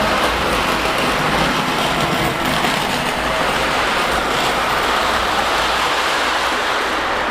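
O-gauge model train running on track, a steady rolling rumble and hiss with no distinct beats: a LionChief Plus 2.0 Berkshire 2-8-4 locomotive pulling its passenger cars.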